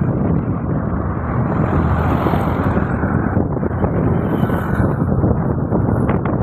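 Steady rumble of wind on the microphone mixed with engine and tyre noise from the moving vehicle carrying it.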